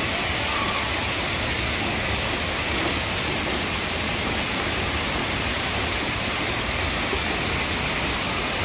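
Steady rush of water falling and splashing from a water play structure's spouts.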